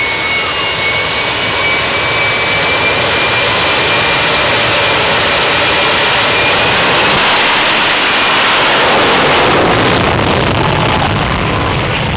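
Jet-turbine engine of a jet-powered semi truck running with flames shooting from its exhaust stacks: a loud, steady roar with a high turbine whine over it at first. The roar swells louder in the second half, then eases slightly near the end.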